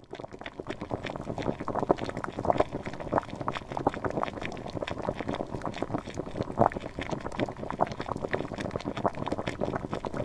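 Water at a rolling boil in a steel pot: a dense, irregular run of bubbling pops and gurgles.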